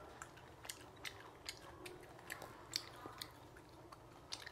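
Chewing crisp batter-fried coconut worms (palm weevil larvae): faint, irregular crunches and mouth clicks, about two a second.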